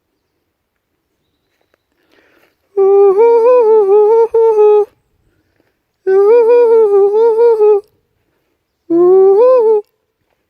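A person's voice humming loudly in long, wavering notes, three times: first about three seconds in, then twice more with short pauses between. The noise is made to make black bears on the trail move off.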